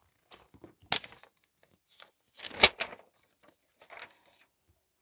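Craft supplies being handled on a tabletop: a few sharp clicks and knocks as items are picked up and set down, the loudest a little before the three-second mark, then a short rustle of paper.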